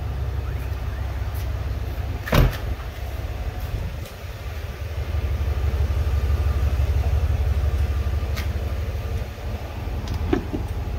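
A steady low rumble throughout, with one loud sharp thump about two seconds in. Near the end comes a short click as the Escalade's push-to-open fuel filler door is pressed and pops open.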